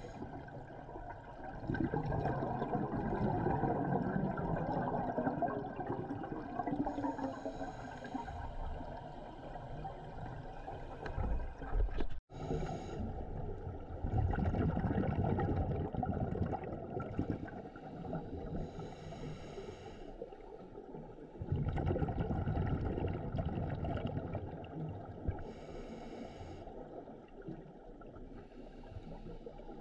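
Scuba regulator breathing underwater: long bubbling exhalations alternating with short hissing inhalations, a breath every several seconds. The sound cuts out for an instant about twelve seconds in.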